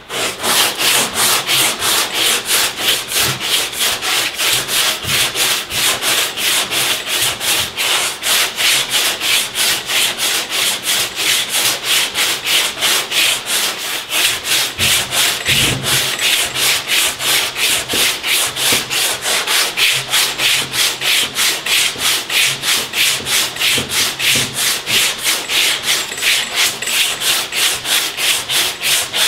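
80-grit stick-it sandpaper on a long hand sanding block, sanding back and forth across cured body filler in quick, regular strokes, about three a second: blocking a dent repair level.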